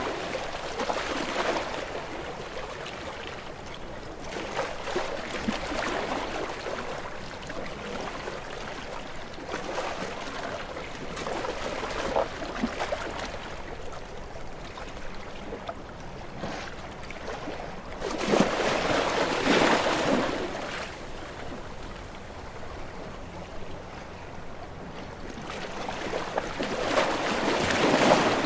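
Sea waves washing in. The rush of water swells and fades, with the loudest surges about two-thirds of the way through and again near the end.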